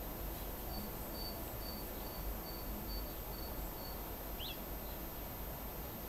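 Birds calling outdoors: a high, short note repeated about twice a second for a few seconds, then a quick swooping chirp near the end, over a steady low rumble.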